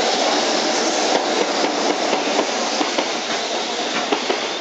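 A JR Freight EF66 electric locomotive running through the station, followed by its loaded container wagons. Their wheels give a steady rushing noise and an irregular clatter of clicks over the rail joints, which grows busier after about a second.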